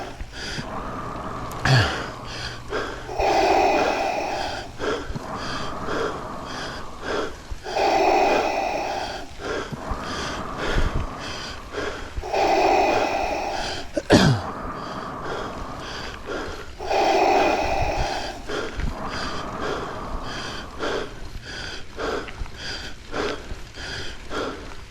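A mountain biker breathing hard, with a loud heavy exhale about every four to five seconds and light clicks and rattles between the breaths.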